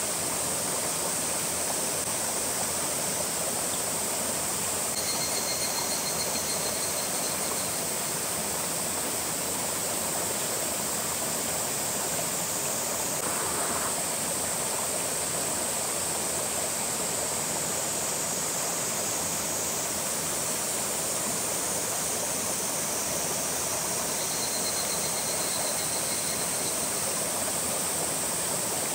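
Steady rushing of flowing water, an even unbroken wash of noise. A faint high trill sounds twice over it.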